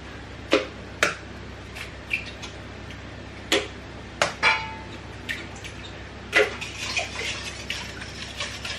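Eggs being cracked on the rim of a stainless steel mixing bowl: a series of sharp taps and clinks, one leaving the metal bowl ringing briefly about halfway through. Near the end a utensil starts clicking quickly against the bowl as the mix is stirred.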